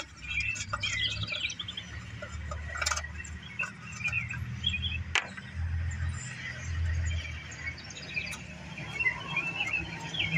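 Small birds chirping and twittering over a low steady rumble of distant machinery, with a few sharp clicks and knocks from hands handling the engine's starter housing, the strongest about three and five seconds in.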